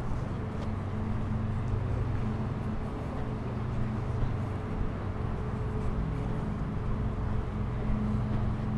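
Steady low engine hum over outdoor city ambience, holding even with no rise or fall in pitch.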